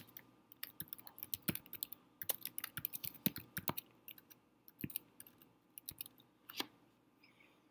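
Typing on a computer keyboard: quick runs of key clicks with a few spaced single presses toward the end, stopping a little before seven seconds in.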